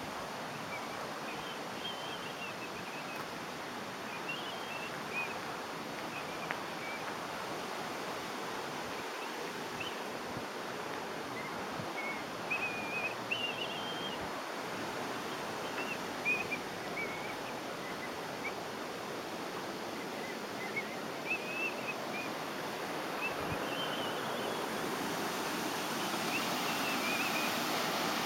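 Steady rush of river water pouring over a weir, a hiss that grows louder over the last few seconds, with birds chirping in short high calls throughout.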